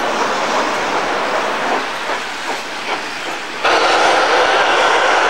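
Passenger coaches of a steam train rolling, with a few clicks of wheels over rail joints. About two-thirds in, a loud steady hiss starts suddenly as the steam locomotive ahead blows steam out to the side.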